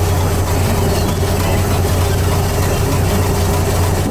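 Lobster boat's engine running steadily with a low drone, and a steadier, higher hum over it that fades out near the end. A constant hiss of wind and water sits beneath.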